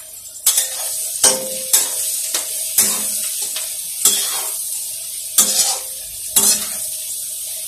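A spatula scrapes and knocks around a kadhai in about a dozen irregular strokes. Underneath, vegetables and torn roti pieces fry in hot oil with a steady sizzle.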